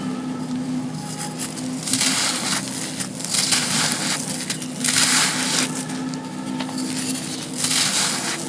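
Dry, gritty sand cones being crushed and crumbled, giving crunchy bursts of grit about every second and a half.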